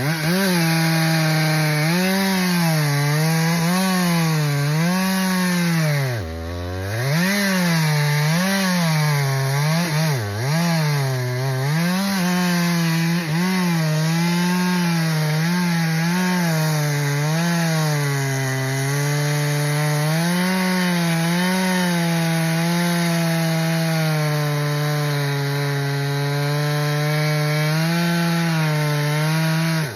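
Two-stroke chainsaw cutting wood under load, its engine pitch wavering up and down as the chain bites. The engine bogs down sharply about six seconds in and again briefly near ten seconds, then picks up again and runs on until it drops off at the end.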